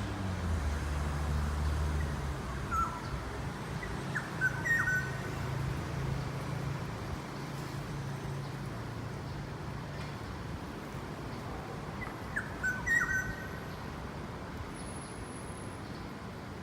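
Black-naped oriole calling: two bouts of short fluty whistled notes, one a few seconds in and another near the end, over a low steady hum.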